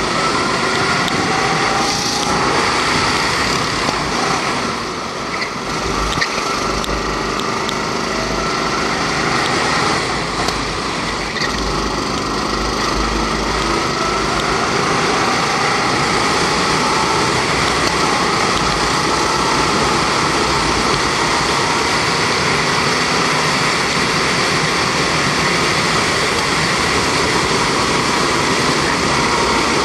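Rental go-kart's 270cc Honda four-stroke single-cylinder engine running hard on track, heard from on board. Its pitch rises and falls as the kart lifts for corners and accelerates out of them, with a brief dip in loudness about five seconds in.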